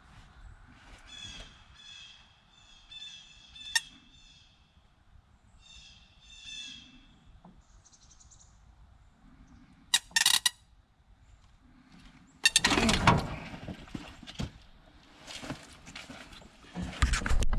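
A bird calling in two runs of short, repeated calls. About ten seconds in comes a sharp clatter, followed near the end by louder noisy bursts.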